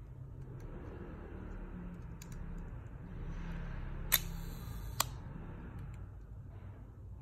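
Voigtländer Bessamatic's leaf shutter fired on a slow speed. A sharp click as it opens is followed by a high buzz from its timing gears for just under a second, then a second click as it closes. A low hum and faint handling noise come before it.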